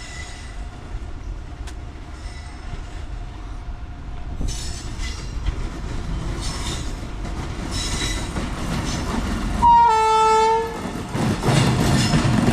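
Approaching train's wheels screeching against the rails in intermittent high-pitched squeals, growing louder. About ten seconds in the locomotive horn sounds once for about a second, then the low rumble of the train rises as it draws near.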